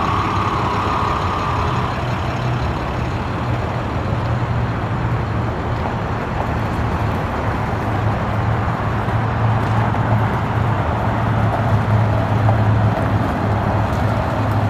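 International 4300 truck's MaxxForce DT inline-six diesel running steadily with a low hum as the truck pulls slowly away, a higher whine fading out about two seconds in.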